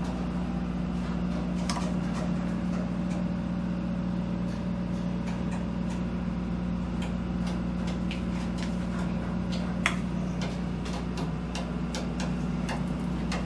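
Steady low machinery hum with a few fixed tones, dotted with faint clicks and taps; one sharper click about ten seconds in.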